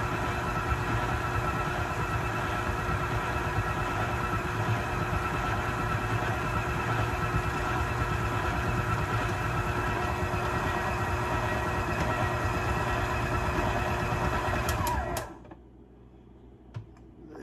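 Electric mixer motor running steadily while it mixes cookie dough, then switched off about fifteen seconds in. A few light clicks follow.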